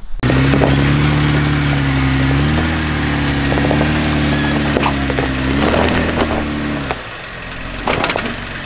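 Jeep Wrangler's engine running at low, steady revs while crawling over loose rock, its pitch stepping up briefly partway through. It fades out about seven seconds in, leaving a few sharp knocks of rock under the tyres.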